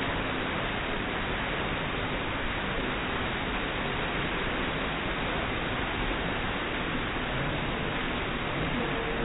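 Steady rushing-water noise of an indoor water park, from churning pool water and the slides, with no distinct events.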